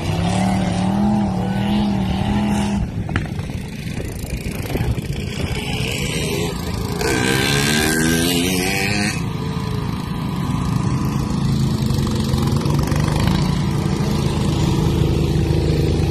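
Engines of mud-bogging trucks and a small ATV running and revving. About seven seconds in, a nearby engine revs up hard for a couple of seconds, then steady engine running continues.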